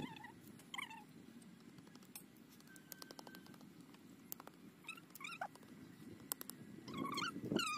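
Faint animal calls: a few short, bending cries right at the start and a cluster of them near the end, with scattered faint clicks in between.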